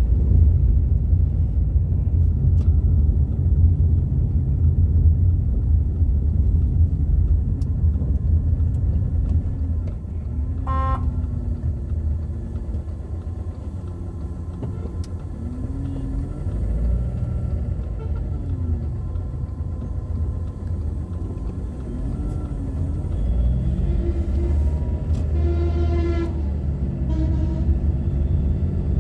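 Car's engine and tyre rumble heard from inside the cabin while driving, steady and low. A vehicle horn gives a short toot about 11 seconds in, and a horn sounds again, longer, near the end.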